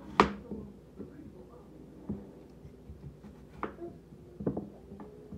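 Kitchen knife chopping apple into small cubes on a wooden cutting board: one sharp knock about a quarter second in, then a few lighter, spaced knocks.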